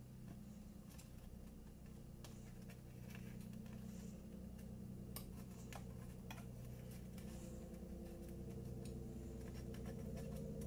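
Faint small clicks and taps of fingers pressing and handling cardstock paper, heard over a steady low hum.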